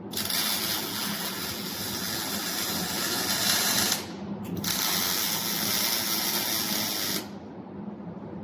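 MIG welding arc crackling in two runs: about four seconds, a short break, then about two and a half seconds more. A steady low hum continues underneath.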